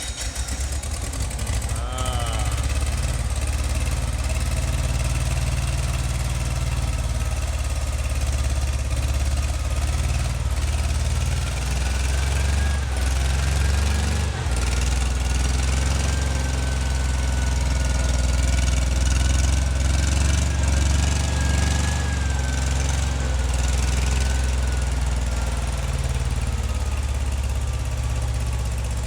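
Freshly rebuilt VW 36 hp air-cooled flat-four engine, fitted with an Abarth muffler, running steadily on a bench stand just after catching on its first start.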